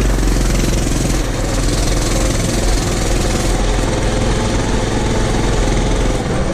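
Small single-cylinder engine of a Coleman CT200U mini bike running steadily as it rides across a rough, wet hay field, the engine note unsteady under a rush of noise.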